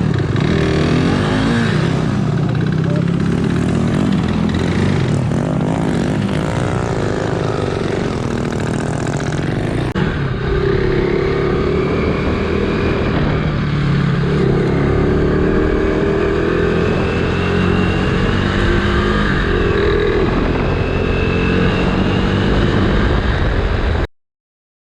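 Dirt bike engine running and revving, its pitch rising and falling as the bike rides, cutting off suddenly near the end.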